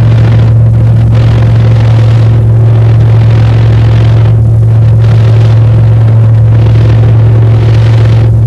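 Small plane's engine and propeller droning steadily in flight, heard from inside the cabin: a loud, even drone with a strong low hum that holds one pitch.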